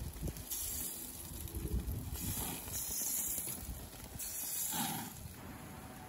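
Food sizzling on a gas grill: a hiss that swells and fades several times over a low rumble, with a few light knocks in the first two seconds.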